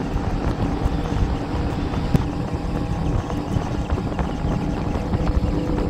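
Motorcycle engine running steadily at cruising speed, mixed with road and wind noise.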